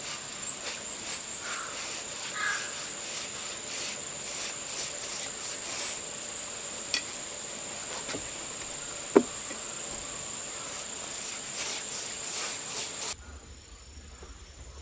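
A steady high insect trill, broken twice by runs of short pulsed chirps, with faint scraping and knocking of a brush working oil onto weathered wooden boardwalk planks. A single sharp knock about nine seconds in is the loudest sound.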